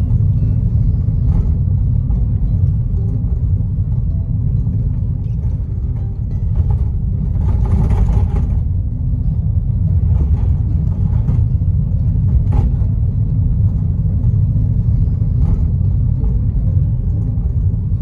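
Steady low road-and-engine rumble of a moving car, heard from inside the cabin, with a brief rushing noise about eight seconds in.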